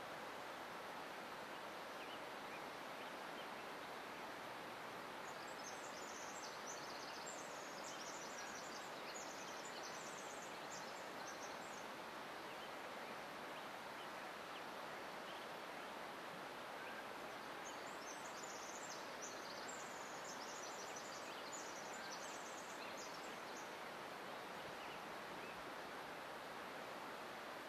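Forest ambience: a steady rushing background noise, with a small bird's long, high, fast-trilling song heard twice, each bout about six seconds long.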